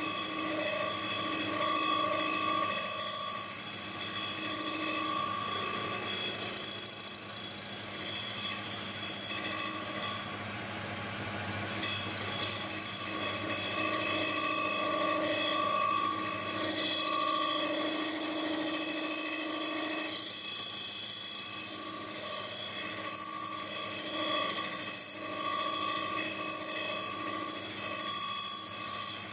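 Homemade lathe taking a facing cut on thick steel plate with a carbide tool: a continuous metal-cutting squeal of several high tones that swell and fade, easing for a moment about ten seconds in.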